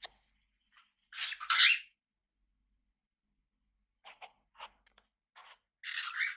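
Pet parrots making short, harsh, noisy bursts, twice near the start and once near the end, with a run of small sharp clicks in between.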